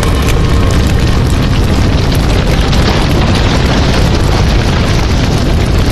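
A loud, steady, explosion-like sound effect, dense noise filling everything from deep bass to hiss and holding without a break, with music faintly beneath it.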